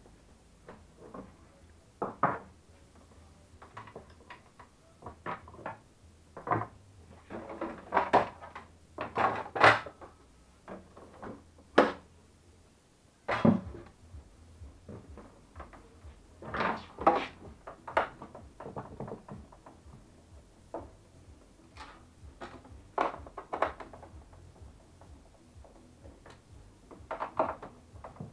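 Scattered knocks, clicks and rattles of hands handling a Melitta Barista TS Smart coffee machine and screwdrivers as it is taken apart. A faint low hum underneath stops about halfway, at one of the louder knocks.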